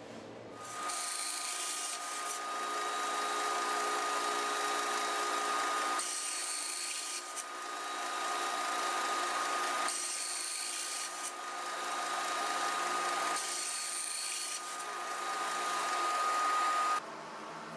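Small benchtop band saw cutting through a plastic tube, running with a steady high whine under a cutting hiss that changes every few seconds as the tube is fed. It starts just after the beginning and stops suddenly near the end.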